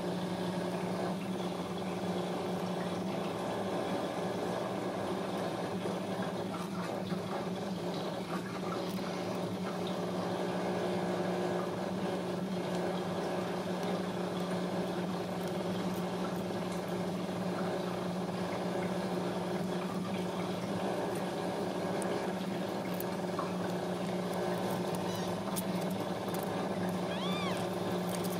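A steady low hum throughout; near the end a newborn kitten gives a few short, high mews that rise and fall.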